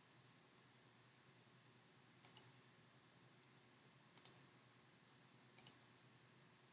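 Computer mouse button clicks: three quick double clicks, each a pair of sharp ticks, spaced a couple of seconds apart over a quiet background.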